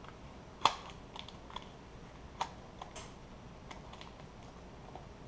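Scattered light clicks and taps of small items being handled, with one sharper click under a second in and another about two and a half seconds in.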